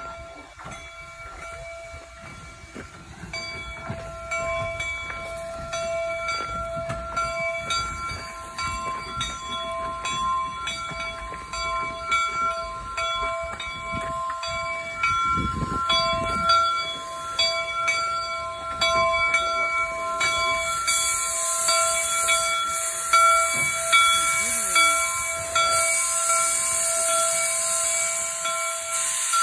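Replica Union Pacific No. 119 steam locomotive approaching and passing close, its bell ringing in steady, even strokes and growing louder. About two-thirds of the way in, a loud hiss of steam venting around the cylinders joins the bell.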